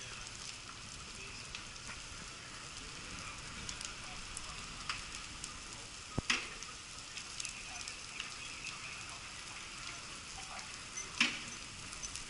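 City bus burning: the fire gives a steady crackling hiss, broken by a few sharp pops, the loudest about six seconds in and another near the end.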